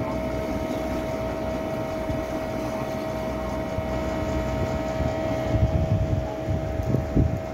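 Steady mechanical hum with a steady mid-pitched whine. Low rumbles swell and fade in the second half.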